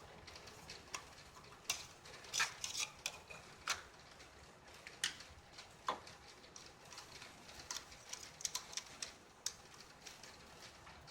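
Irregular small clicks and taps of small plastic and metal hardware being handled, a few sharper clicks coming in quick clusters.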